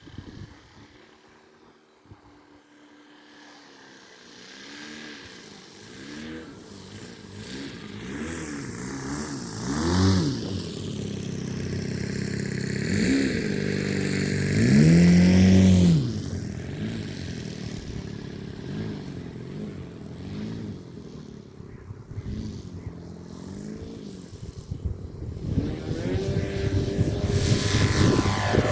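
RC SuperStol model plane's motor and propeller buzzing as it flies, the pitch rising and falling again and again as it passes and changes throttle, loudest on close passes about 10 and 15 seconds in and again near the end.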